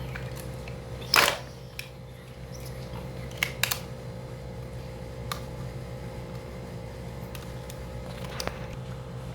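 Scattered clicks and knocks of small plastic toy pieces and packaging being handled. The loudest comes about a second in, and two quick ones follow in the middle, over a steady low hum.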